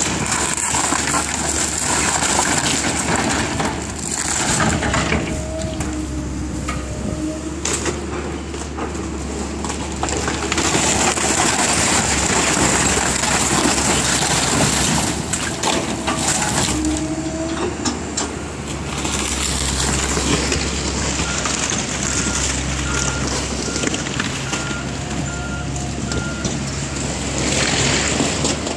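Tracked hydraulic excavator working in demolition debris: a steady diesel engine drone with hydraulic whine rising and falling as the arm moves, and scattered crunching and cracking. Near the end a backup alarm beeps steadily, a little more than once a second.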